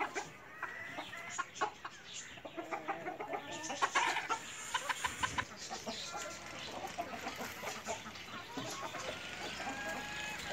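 Chickens clucking, a busy run of many short calls from several birds.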